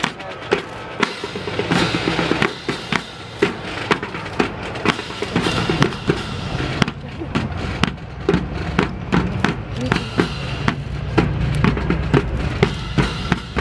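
Military drum corps playing snare and bass drums in a steady marching rhythm, sharp drum strokes several times a second.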